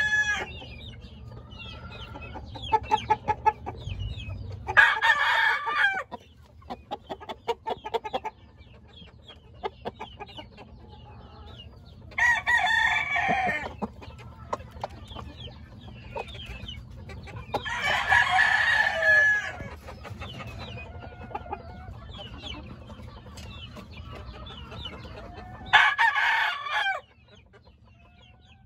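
Gamecock roosters crowing four times, each crow about one to two seconds long and spaced roughly six seconds apart, with quieter rapid clucking between the crows.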